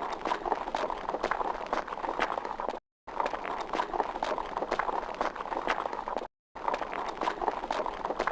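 Horse galloping: a fast, dense run of hoofbeats. It breaks off for a moment of dead silence twice, about a third and three quarters of the way through, and starts again.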